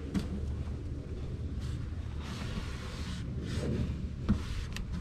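Cloth work towel rubbed over a plastic engine cover in a few soft strokes, over a low steady rumble, with a couple of light clicks near the end.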